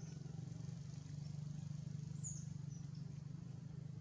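Steady low outdoor rumble, with one short high chirp gliding down about two seconds in and a couple of fainter chirps after it.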